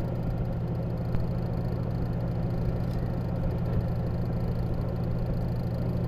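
Spin-dryer motor of a Micromatic twin-tub washing machine running with a steady low hum, now spinning on a newly fitted capacitor: the old capacitor had weakened too far to drive the spin motor.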